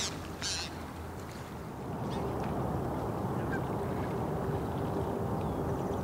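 Steady rumble of rush-hour highway traffic, growing louder about two seconds in, with a couple of short bird calls in the first second.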